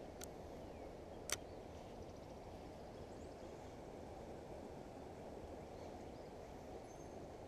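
Steady low rushing outdoor noise at the canal side, with two sharp clicks near the start, the second and louder about a second after the first. A faint high bird chirp or two comes later.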